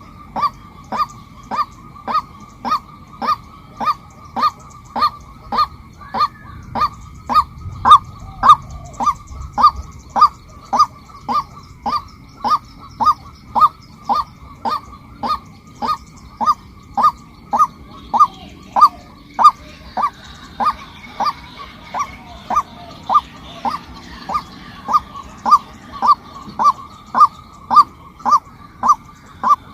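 Female white-breasted waterhen calling: a short, clipped note repeated steadily about twice a second without a break. Fainter, higher bird chatter comes in behind it around the middle.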